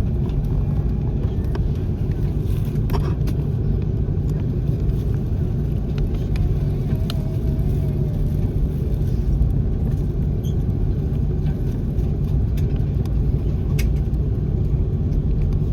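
Steady low rumble of an Airbus A330-300's engines and airflow heard inside the passenger cabin, with a few faint clicks.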